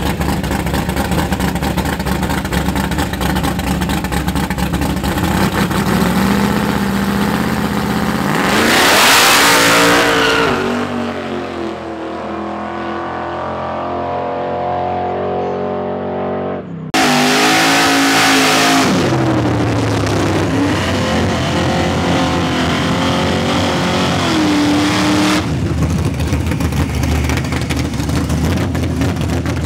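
Modified pickup's drag-race engine idling at the line, building revs, then launching at full throttle about eight seconds in, its pitch climbing through several gear changes as it pulls away and fades. After a sudden cut another race engine runs at full throttle close by, and near the end an orange Camaro's engine rumbles at low speed as it rolls past.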